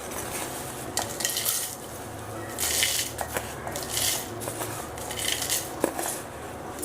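Dry-roasted whole spices and dals being tipped from a plate into a mixer-grinder jar: several separate rattling pours of hard seeds, with sharp clicks against the plate and jar.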